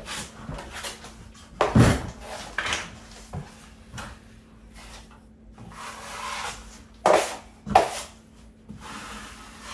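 Steel drywall taping knife scraping joint compound in and off the edge of a metal mud pan and wiping over paper tape on the wall: a run of short scrapes and knocks, the sharpest about two seconds in and a pair about seven seconds in.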